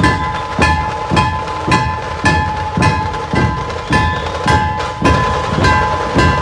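A dhol-tasha troupe's large dhol barrel drums beaten in a steady, loud rhythm of about two heavy strokes a second, with lighter strokes between. A steady high ringing sounds over the beat.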